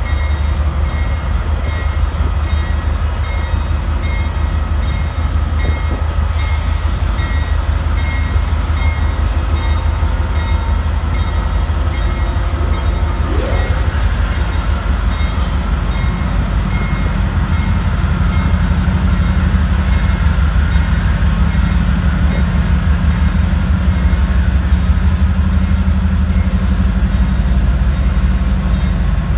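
Union Pacific diesel locomotives passing close by: a steady deep engine rumble with wheel and rail noise. The rumble gets a little heavier about halfway through as another locomotive comes alongside, and there is a short hiss about six seconds in.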